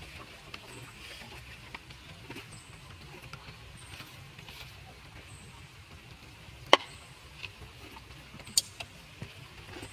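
Quiet outdoor background with light scattered ticks and rustles, broken by two sharp clicks, one about two-thirds of the way in and one near the end. A faint, short, high peep recurs every second or so.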